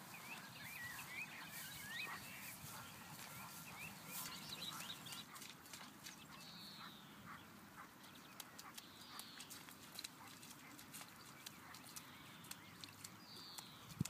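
Wild birds singing and calling, faint: a quick run of short chirps over the first few seconds, then a few single falling calls a few seconds apart.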